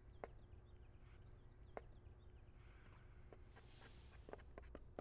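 Faint scraping and soft ticks of a tool hand-mixing two-part epoxy capping gel. The ticks come quicker near the end.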